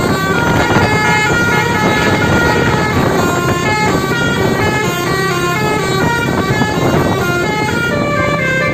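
Bus telolet horn, a multi-tone musical air horn, playing a fast winding snake-charmer-style melody of short stepped notes over a steady low rumble.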